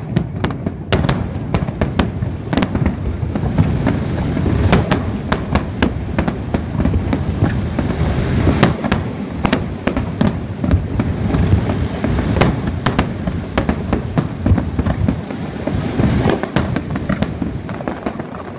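Aerial fireworks shells bursting in rapid succession: a dense, continuous rumble of booms with many sharp cracks and pops over it.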